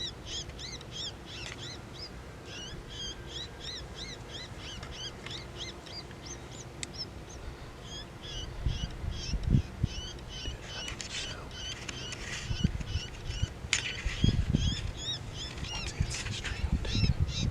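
Rapid, high-pitched bird-like chirping calls, many a second, thinning briefly a little past the middle. From about halfway, low thumps and rumbles on the microphone come in under them.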